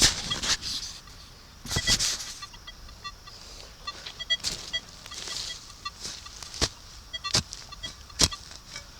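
Handling and digging noises in leaf litter and dirt: scraping swells and a run of sharp knocks and clicks. Short, repeated high beeps from a Minelab Legend metal detector sound through them as it is swept over a target.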